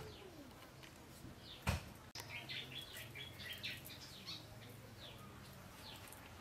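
Small birds chirping, a quick run of short, high, falling chirps, with a single sharp knock shortly before they start.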